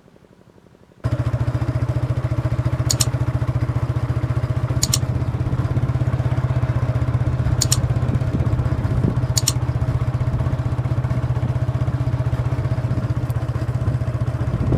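An engine running steadily with a low pulsing drone that cuts in suddenly about a second in, with a few sharp ticks over it.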